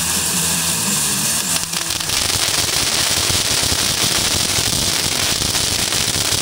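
Brothers Fireworks 'Oversize Load' fountain spraying sparks with a loud, dense, rapid crackle that thickens from about two seconds in.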